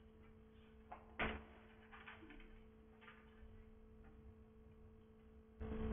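Quiet room tone with a steady low electrical hum, broken by a single sharp knock about a second in and a few faint rustles; louder sound begins just before the end.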